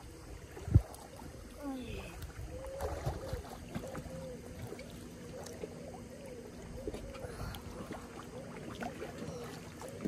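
Pool water sloshing and lapping as a swimmer does breaststroke close by, with one sharp thump about a second in.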